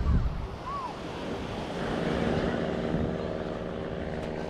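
Wind buffeting the microphone at first, then a steady engine hum that comes in about two seconds in.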